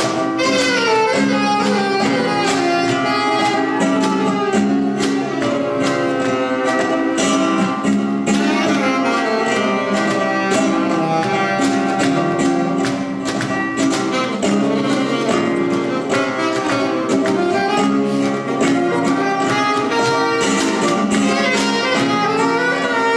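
Live flamenco music: a flamenco guitar strummed and picked over cajón beats, with a saxophone carrying sustained melody notes.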